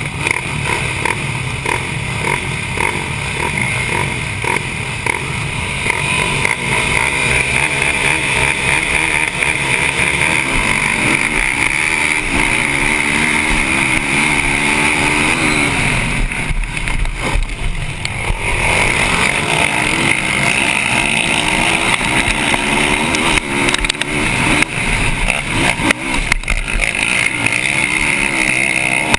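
Yamaha YFZ450R quad's single-cylinder four-stroke engine racing at full throttle, its pitch climbing and dropping as the rider works through the gears and corners, with other racing ATV engines around it. The sound is picked up from the rider's helmet.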